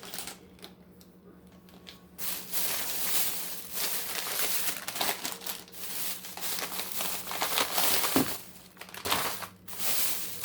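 Plastic packaging crinkling and rustling as groceries are handled, starting about two seconds in after a short quieter lull.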